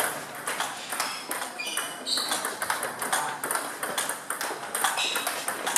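Table tennis rally: the ball clicks sharply against bats and the table in quick back-and-forth succession, with a few short high squeaks in between.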